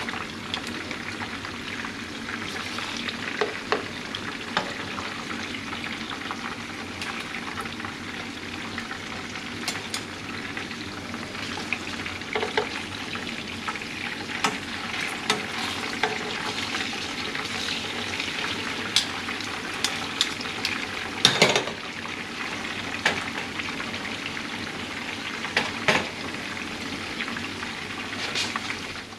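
Pompano fillets frying in a pan: a steady sizzle with scattered sharp crackles, the loudest a little past the middle.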